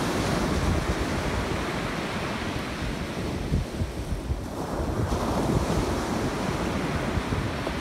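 Rough ocean surf breaking and washing up the beach, with wind buffeting the microphone. A wave swells up about five seconds in.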